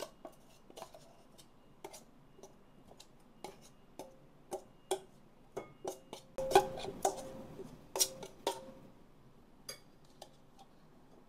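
Metal spoon knocking and scraping against a stainless-steel chopper bowl and a ceramic bowl as chopped chicken is emptied out. It makes a string of sharp clinks and knocks that are busiest and loudest around the middle, with a brief metallic ring.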